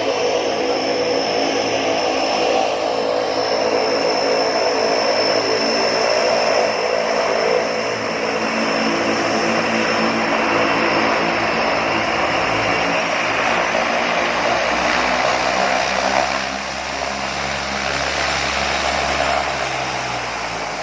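Propeller engine of a small floatplane running loudly and steadily, a dense drone of layered tones; it drops a little in level about 16 seconds in and keeps easing off toward the end.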